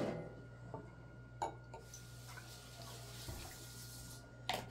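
Sports drink poured from a plastic bottle into a small drinking glass, the pour ending with a short ringing trickle about half a second in. Light knocks and clicks follow as the bottle is set down and handled, about a second and a half in and again near the end.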